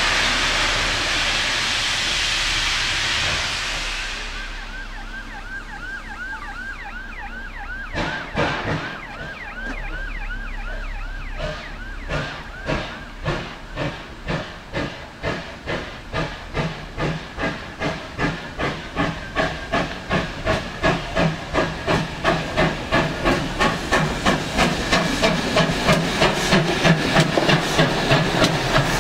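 GWR 57xx pannier tank no. 7714 starting away. A hiss of steam comes first, with a chirping squeal repeating for a few seconds. About eight seconds in the chimney exhaust beats begin, slow at first, then quickening to about three a second and growing louder as the engine gathers speed.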